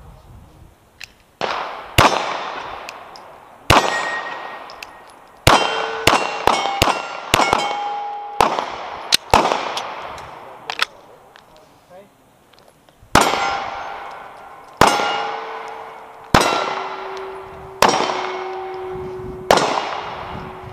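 Metal being struck over and over, each hit a sharp clang that rings on with a steady tone. There is a quick run of hits in the middle, then slower single strikes about one and a half seconds apart near the end.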